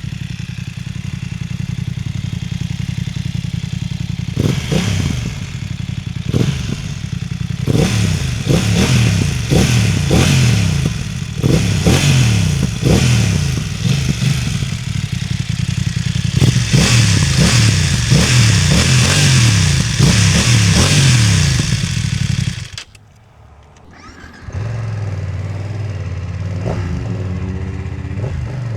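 BMW F900R parallel-twin motorcycle engine running steadily, then revved hard again and again, its pitch rising sharply and falling back many times in quick succession. About 23 seconds in the sound cuts off briefly, and a steady engine note follows.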